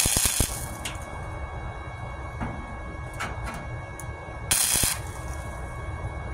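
Flux-core wire-feed welder (Titanium 125 Easy Flux) laying spot welds on a 1/16-inch sheet-steel patch: two short bursts of arc, each about half a second, one at the very start and one about four and a half seconds in.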